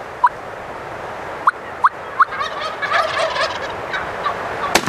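Gould's wild turkeys calling: several short, sharp single notes in the first two seconds, then a gobble about midway. A sharp crack sounds just before the end.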